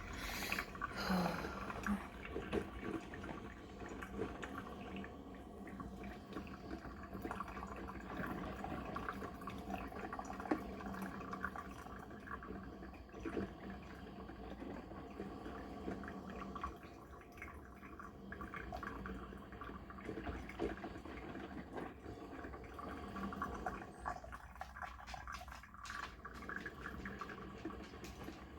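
Cuisinart 2-in-1 coffee maker brewing a carafe: hot water gurgling and sputtering through the machine and dripping into the pot, with scattered small clicks.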